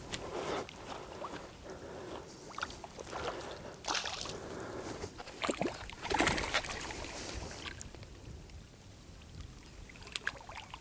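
Stream water splashing and sloshing in uneven bursts as a hooked trout is fought and landed. The loudest splash comes about six seconds in, then it quietens, with a few sharp clicks near the end.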